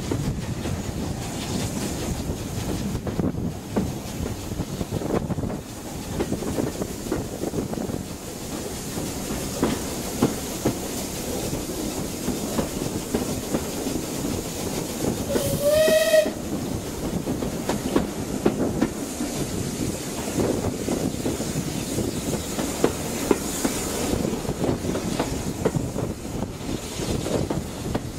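Steam-hauled train running, wheels clicking over the rail joints with a rush of wind at an open carriage window. Just past halfway the locomotive gives one short steam-whistle blast, slightly rising in pitch and under a second long.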